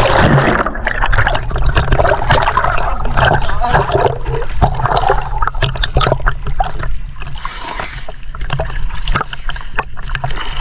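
River water splashing and sloshing right at the microphone as the camera is dunked and then carried at the surface, full of small crackles and gurgles over a low rumble.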